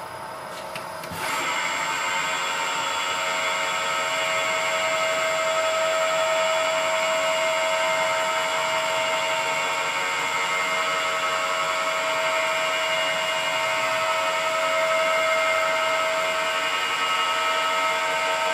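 CNC milling machine spindle starting up about a second in and running steadily with a whine of several steady tones, drilling the head stud holes in a Subaru EJ aluminium engine block out for half-inch studs.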